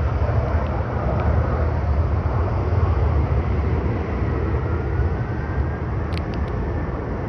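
Airbus A319 jet engines running, a steady deep rumble with a faint rising whine partway through and a few light clicks near the end.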